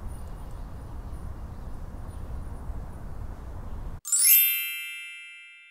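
A low outdoor rumble of wind on the microphone runs for about four seconds and then cuts off abruptly. A bright, bell-like chime sound effect rings out and fades away over the next two seconds.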